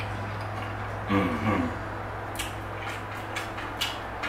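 Eating sounds at a table: a short hummed "mm" about a second in, then a run of small sharp clicks from chewing and a fork on the plate, over a steady low hum.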